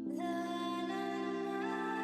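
Background music: slow ambient instrumental with held chords, a new chord coming in at the start and higher notes added one after another over it.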